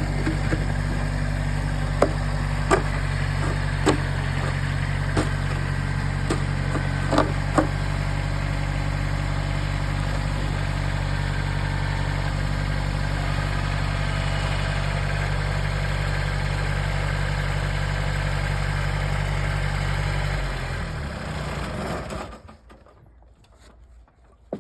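Kubota BX1800 compact tractor's diesel engine idling steadily, with a few sharp clanks in the first eight seconds. About twenty-one seconds in, the engine is shut off and winds down, leaving it much quieter.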